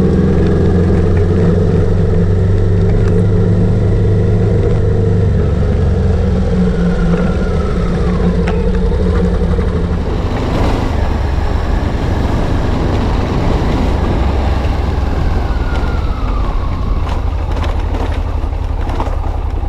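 Motorcycle engine running steadily as the bike is ridden along a dirt trail. About halfway through, the sound changes to a rougher, noisier ride with scattered knocks and clicks.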